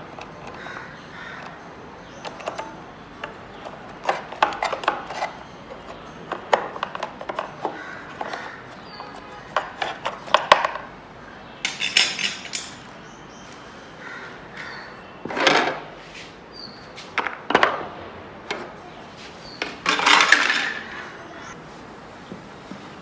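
Motorcycle battery's plastic case knocking and scraping against its metal tray and frame as it is worked into place by hand: irregular clicks and clunks, with several longer scrapes in the second half.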